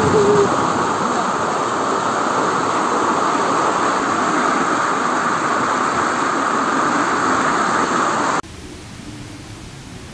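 Water rushing down a concrete tubing channel: a loud, steady rush. It gives way abruptly to a fainter steady hiss about eight seconds in.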